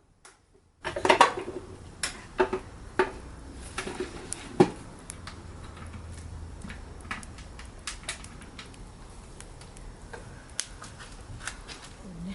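Wood campfire crackling: a steady hiss with many sharp, irregular pops and cracks, the loudest in the first few seconds. It starts suddenly after a moment of near silence.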